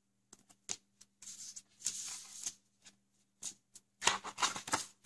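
Paper decal sheets being handled and laid down on a cutting mat: short rustles and light taps, with a longer bout of rustling near the end.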